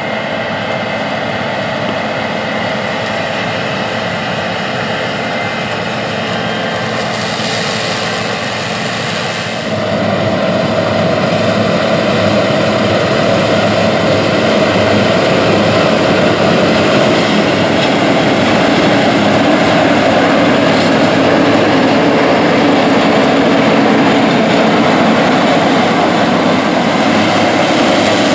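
John Deere 9500 Maximizer combine harvesting wheat, its 7.6-litre six-cylinder diesel engine and threshing machinery running steadily under load. The sound steps up and grows louder about ten seconds in.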